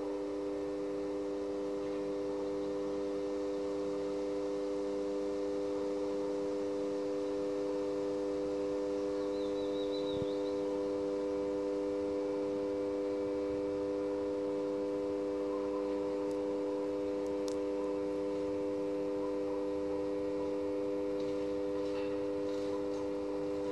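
Welding transformer humming steadily under load, a chord of several steady tones, as it drives heating current through a cable conductor. A few faint ticks come near the end.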